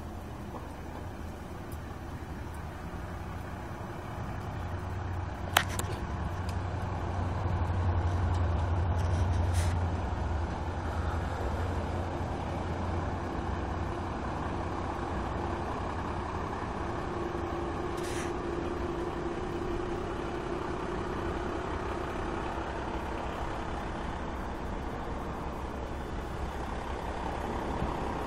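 Road traffic: a motor vehicle's low engine rumble swells and fades about six to ten seconds in, with a single sharp click near six seconds.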